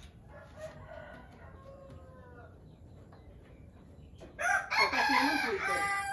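A rooster crowing twice: a fainter crow in the first two seconds or so, then a loud, close crow starting about four seconds in and lasting about two seconds.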